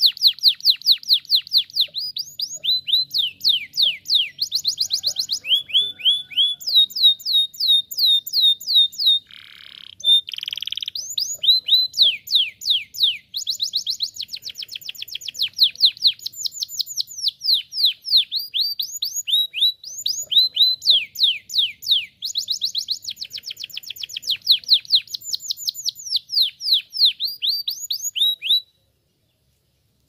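Domestic canary singing: rapid trills of quick, high descending notes, one run after another. Two rougher, buzzy notes come about nine to ten seconds in, and the song breaks off near the end.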